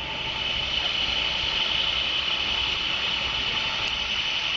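A motor vehicle running close by: a steady engine and road noise that holds without a break.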